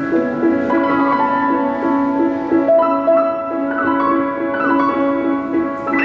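Solo piano being played: a quick repeating figure in the middle register under a slower melody of held notes above.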